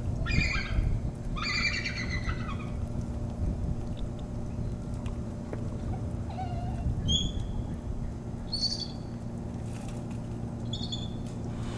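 Bald eagle calling: two high, whistled, whinny-like chattering calls in the first few seconds, then a few short high piping notes later on, over a steady low hum.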